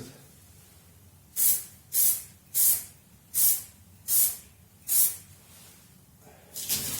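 Spectral blend-in thinner sprayed onto the blend edge of freshly laid clear coat: six short hissing bursts about two-thirds of a second apart, then a longer one near the end.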